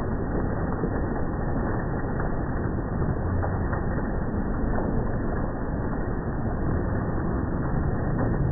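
Hailstorm heard in slow motion: hail and rain beating down as a dense, steady rush with many scattered dull knocks, slowed and lowered in pitch. A low hum rises near the end.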